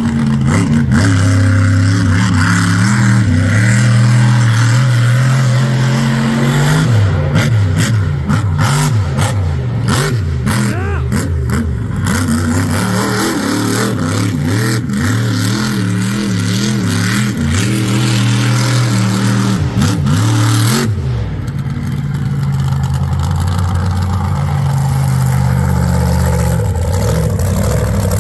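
King Sling monster truck's 1,500-horsepower engine running hard with the throttle. The revs are held high at first, swing quickly up and down through the middle, then settle and hold again near the end.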